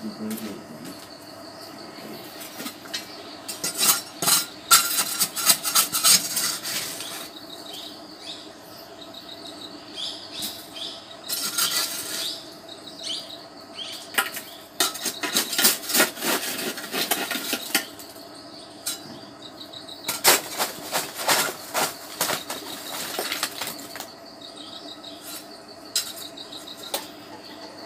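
Metal striking metal in bursts of rapid clinks, typical of a blacksmith hammering a blade's edge thin, over the steady hum of an electric forge blower.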